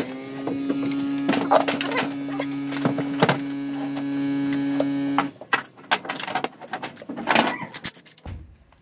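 A handheld cordless power tool's motor spins up and runs at a steady pitch for about five seconds, then stops, driving a brake caliper mounting bolt. Metal clicks and knocks from handling the caliper and tools follow.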